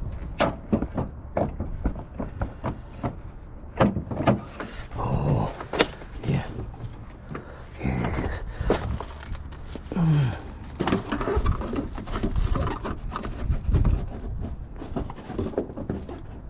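Irregular clicks, knocks and rattles of hand tools and car parts being handled during front-end disassembly of a car.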